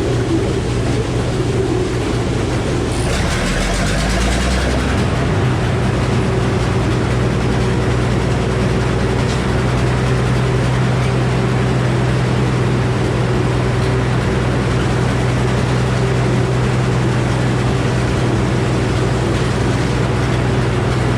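Old Frick circular sawmill running steadily under power, a constant low engine hum with a higher whine over it. About three to five seconds in, a brief surge of hissing noise rises over the drone.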